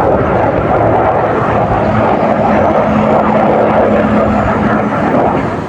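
Airplane engine noise: a loud, steady roar with a steady hum running through it for a few seconds, easing slightly at the end.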